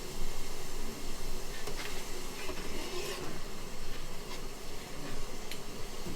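Steady hiss and bubbling of the shrimp-boil pot boiling on the stove, with a few light clinks of utensils or dishes.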